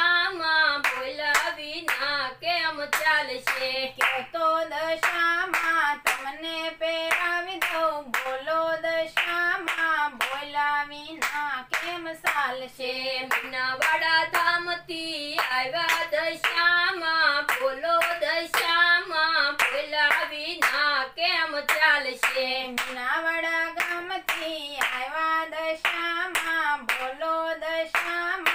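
A woman singing a Gujarati devotional song in a melodic, wavering line, accompanied by steady hand clapping that keeps the beat at about two to three claps a second.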